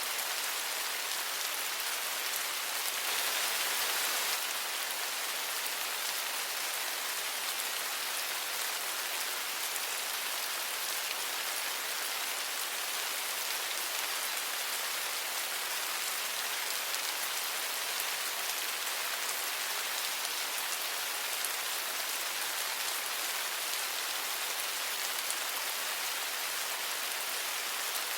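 Steady rainfall, an even hiss of many drops, swelling slightly about three seconds in.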